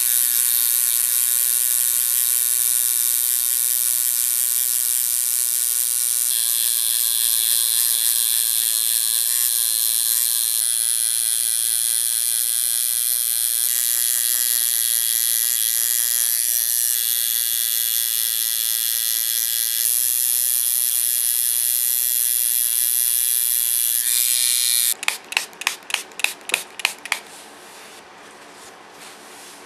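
Electric tattoo machine buzzing steadily as it inks the skin, its pitch shifting a few times. About 25 seconds in it stops, followed by a quick run of about eight short sharp bursts.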